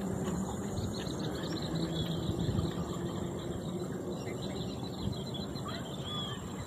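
Outdoor wetland background: insects buzzing steadily over a low hum, with a few short bird chirps about five to six seconds in.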